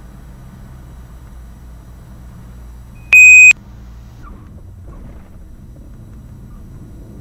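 Steady low drone of the Cirrus SR20's idling engine and cabin, heard through the cockpit audio. About three seconds in, a single loud electronic beep cuts in, a bit under half a second long.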